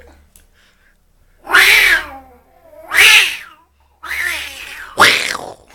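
Cat meowing: four loud, drawn-out meows about a second apart, the first starting about a second and a half in.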